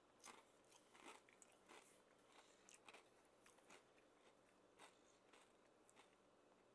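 Faint crunching of a thick kettle-cooked Cape Cod potato chip, dipped in spinach dip, being bitten and chewed: irregular crisp crunches, the strongest in the first second or so, growing sparser toward the end.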